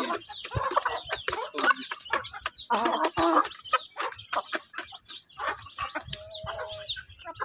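Hens clucking as they crowd a bowl of grain, over many quick clicks of beaks pecking at the grain and the bowl. About six seconds in, one bird gives a short, steady call.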